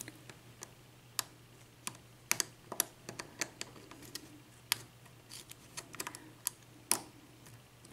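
Lock pick working the pins inside a BEST padlock core under light tension: small, irregular, sharp clicks and ticks as the pins are lifted and set.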